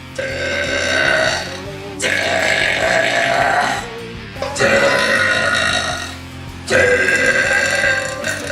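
A person burping deliberately: four long, loud burps one after another, each lasting one to two seconds.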